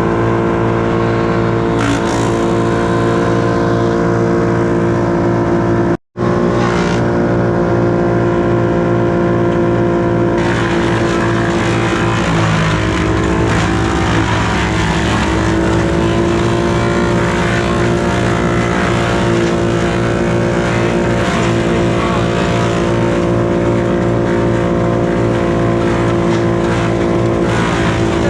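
An engine running steadily at high speed, a continuous drone that drops out for a split second about six seconds in and dips slightly in pitch a little before halfway.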